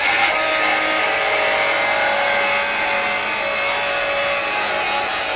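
FLEX FX2141R 24-volt brushless rear-handle circular saw with a 7-1/4-inch blade cutting a 45-degree bevel through pressure-treated 2x lumber. The blade runs under load, a loud, steady whine over the rasp of wood being cut.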